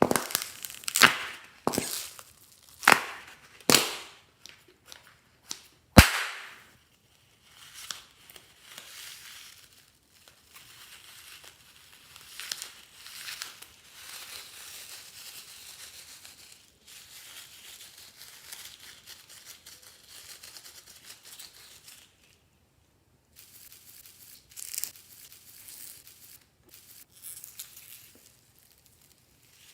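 Glossy slime being squeezed and stretched, air pockets popping sharply about six times in the first six seconds, the loudest near the sixth second. After that come softer sticky crackles and squelches.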